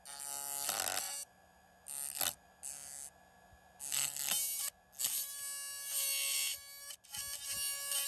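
Buzzing in short, irregular bursts, each up to about a second and a half long, from a powered-up GE dishwasher wash pump motor with a plastic strip held against its spinning hub.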